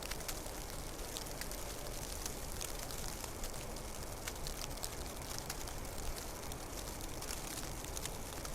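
Snowstorm ambience: falling snow makes a steady hiss scattered with many faint, irregular ticks.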